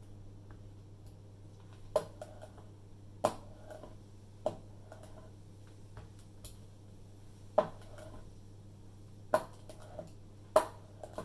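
Hand brayer being loaded on an ink pad with a lift-and-roll motion: a sharp clack each time the roller is set down on the pad, about six in all, each followed by a short soft rolling rub.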